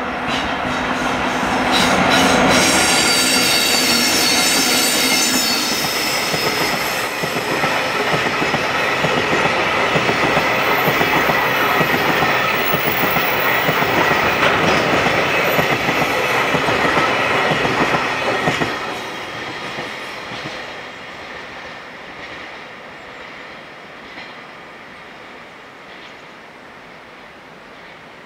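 Freight train hauled by an EF64 electric locomotive running past, with wheels clicking over rail joints and a high wheel squeal. It is loud for the first 18 seconds or so, then dies away as the train recedes.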